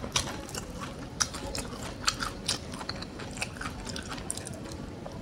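Close-up chewing of a mouthful of crunchy-battered fried chicken, with irregular crisp crackles of the coating breaking between the teeth.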